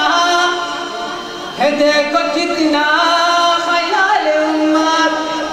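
Young man's voice singing an Urdu naat without accompaniment, drawing out long, ornamented notes with a short pause for breath about a second and a half in.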